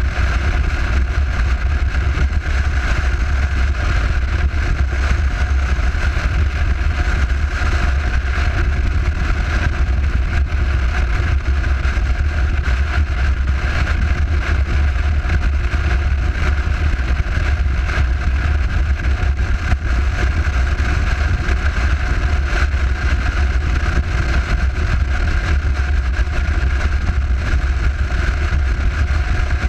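Motorcycle cruising at steady highway speed: a continuous rumble of wind buffeting the bike-mounted camera, mixed with engine and road noise.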